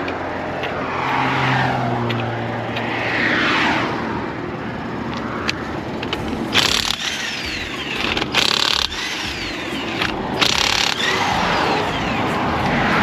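Highway traffic passing close by, each vehicle swelling and fading away. From about halfway in come three or four short bursts of an impact wrench, each ending in a falling whine as it spins down.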